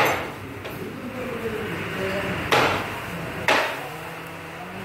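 Cleaver striking a chopping board in sharp knocks: once at the start, again about two and a half seconds in, and once more a second later.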